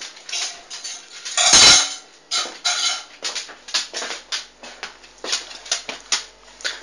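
Kitchenware clattering: a run of short clinks and knocks of dishes, pots and cutlery, with one loud thump about a second and a half in.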